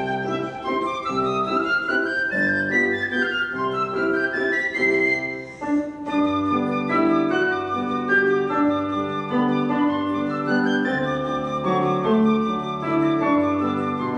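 Flute and grand piano playing a classical piece together: the flute melody climbs over the first couple of seconds above repeated piano chords, eases briefly about six seconds in, then carries on over the piano.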